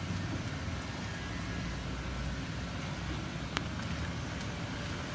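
Hands kneading small morola fish into a wet chili paste, giving faint squishing and small clicks over a steady low rumble, with one sharp click about three and a half seconds in.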